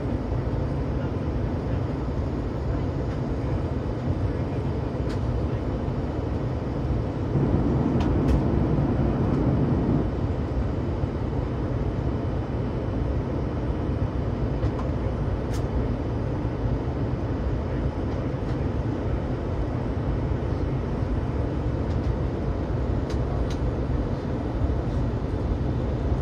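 Airbus A321 cabin noise heard from a window seat on approach: a steady low rumble of engines and airflow, swelling louder for a couple of seconds about a third of the way through.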